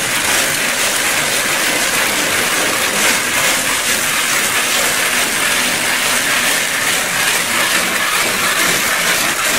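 Plastic trowel rubbing over wet stucco with fine aggregate, a steady gritty scraping as it is worked in small circles to smooth the finish before it dries.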